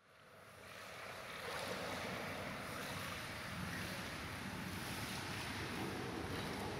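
Steady wash of moving water, fading in from silence over the first second and a half.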